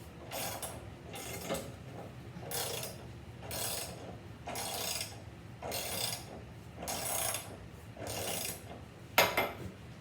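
Car jack being worked to lift the car, in even mechanical strokes about once a second, with a sharp metallic click near the end.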